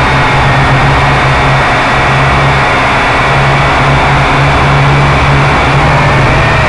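Quadcopter drone's electric motors and propellers whining steadily, recorded from the drone's own onboard camera, over a loud rushing noise. The whine's pitch dips and climbs again near the end.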